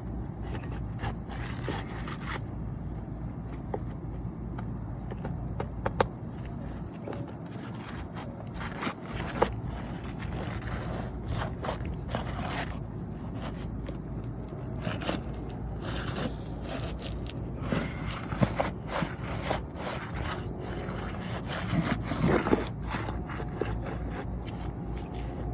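A metal pry tool scraping and working under Owens Corning Oakridge asphalt shingles in irregular strokes, with a few sharp clicks, as the shingles and their nails are loosened to get at a wind-damaged shingle. A steady low rumble runs underneath.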